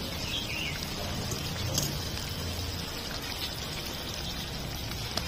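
Thick curry gravy bubbling steadily in a wok around stuffed pointed gourds, cooked down and ready to come off the heat. A light click near the end.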